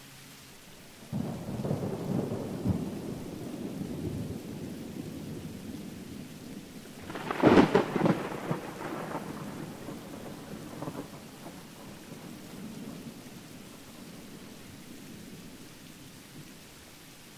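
Steady rain with two peals of thunder: a rolling rumble starting about a second in, then a louder, sharper crack about halfway through that rumbles away over several seconds.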